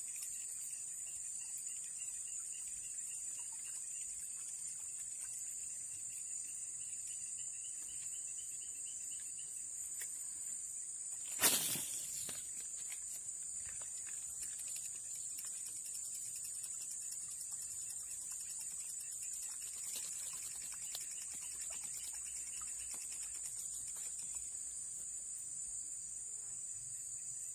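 A steady, high-pitched chorus of insects, joined for the first several seconds by a second, pulsing call. A single sudden loud noise breaks in a little before halfway.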